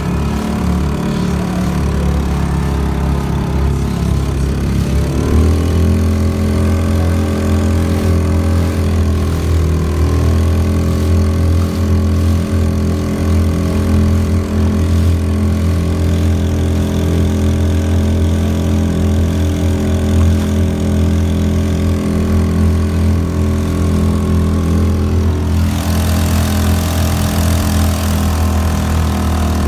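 Honda 2.3 hp single-cylinder four-stroke outboard motor running steadily while pushing a kayak; its pitch climbs a little about five seconds in as it is throttled up, then holds. Near the end a hiss of rushing water from the wake joins in.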